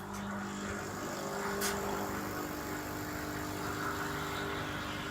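Tchibo Cafissimo coffee machine running steadily with a hum and hiss while it purges the milk-frothing nozzle of milk residue, with a sharp click about one and a half seconds in.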